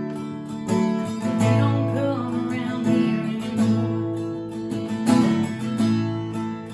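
Acoustic guitar strumming chords, played as part of a live song performance.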